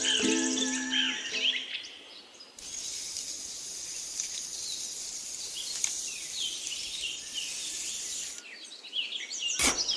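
Ukulele music fading out, then an outdoor ambience of birds chirping and insects over a steady hiss, which cuts off abruptly about eight seconds in.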